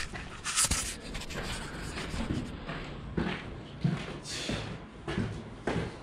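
Footsteps climbing dusty concrete stairs and walking on into a gritty passage: a string of uneven thuds about one to two a second, each with a scuff of grit underfoot.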